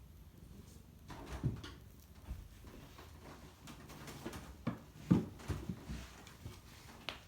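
A few soft, irregular thumps and knocks in a quiet room, the loudest a little past five seconds in.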